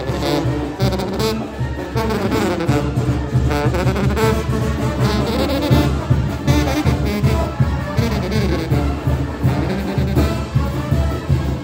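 Brass band playing a muerteada tune: sousaphones pump a steady bass beat under trombones and trumpets carrying the melody.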